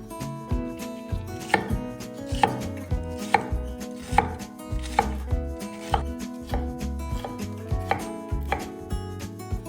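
Regular sharp knocks, about one a second, in a chopping rhythm, over steady sustained tones.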